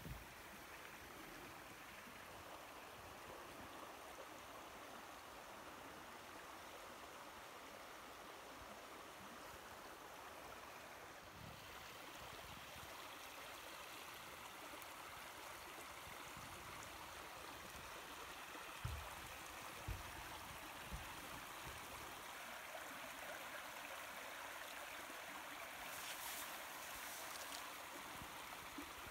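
Small creek running over rocks, a steady gentle babbling of water. A few short low thumps come about two-thirds of the way through.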